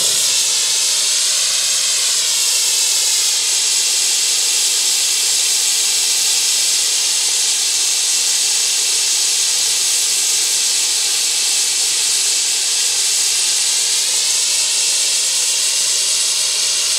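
Twin-nozzle propane brazing torch burning with a steady, loud hiss, its two flames meeting on a steel plate to heat it.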